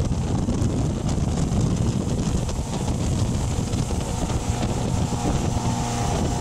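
Tow boat's motor running steadily under way, with wind buffeting the microphone.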